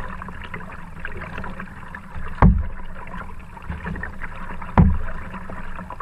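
Kayak being paddled: a steady trickle of water with many small drips and splashes, and two heavy, low thumps about two and a half seconds apart.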